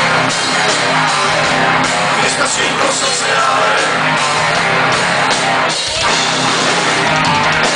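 Heavy metal band playing live: electric guitars, bass and drum kit through the instrumental ending of a song, loud and steady, stopping at the very end.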